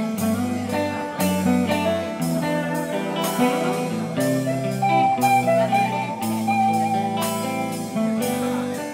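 Live band music: two electric guitars playing sustained notes and chords over a steady drum beat.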